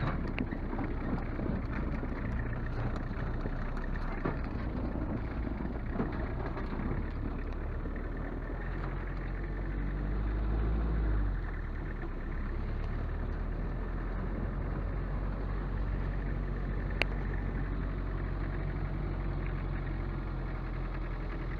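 Motor vehicle engine running steadily with a low hum, with one sharp click about two-thirds of the way through.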